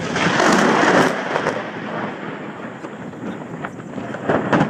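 Thunder crackling from a lightning strike, loudest in the first second and then rumbling on more quietly, with another sharp crack near the end.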